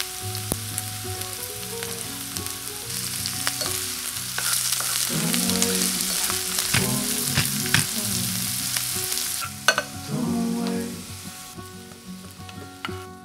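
Diced onion and garlic sizzling in olive oil in a small frying pan, stirred with a wooden spoon that clicks against the pan now and then. The sizzle drops away about ten seconds in.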